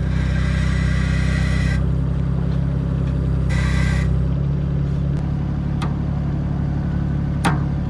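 Skid steer engine running steadily under work, with a hiss over it for the first couple of seconds and again briefly midway. A few sharp clicks come in the second half, the loudest near the end.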